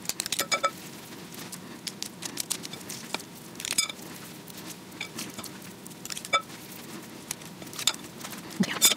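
Ground-beef mixture being scooped and rolled into meatballs by hand, with a few light clicks of a metal scoop against a glass mixing bowl.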